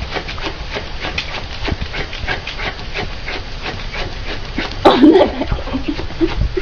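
A dog panting in quick, even breaths, with a short, loud vocal sound about five seconds in.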